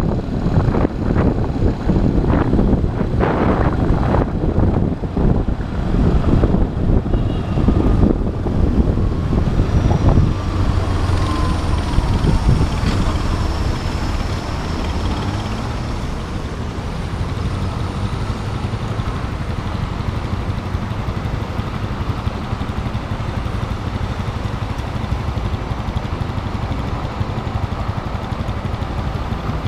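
Motorcycle ride in city traffic: the engine runs under gusty wind rumble on the camera's microphone, then drops with a falling whine and settles to a steadier, quieter hum for the second half.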